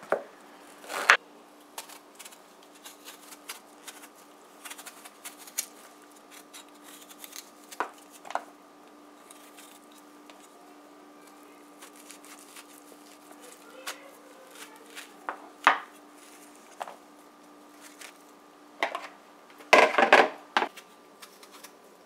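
Kitchen knife cutting squash on a wooden cutting board: scattered knocks of the blade and pieces on the board, with a loud cluster of knocks about twenty seconds in. A faint steady hum runs underneath.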